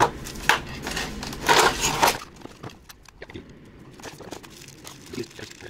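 Plastic wrapping crinkling and rustling as a new faucet and its pull-down sprayer are lifted out of a cardboard box. It is loudest in the first two seconds, then gives way to quieter scattered rustles and clicks.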